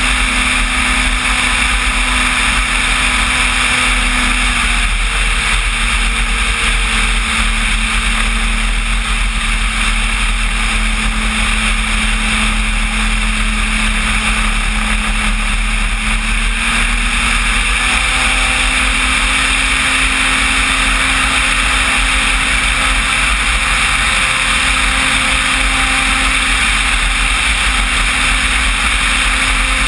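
Electric motor and propeller of a radio-controlled Cessna 185 floatplane model in flight, a steady drone with a rush of air. The pitch drops slightly about five seconds in and rises again around eighteen seconds in.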